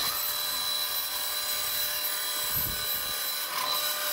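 Bandsaw running steadily with a high whine, its blade cutting through a plywood panel.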